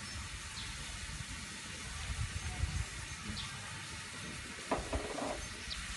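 Sliced chicken sizzling in a pan: a steady hiss over a low rumble.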